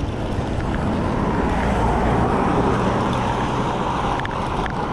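Wind rush on the microphone and road noise from an electric bike riding along a road: a steady rumbling hiss that swells a little through the middle and eases again.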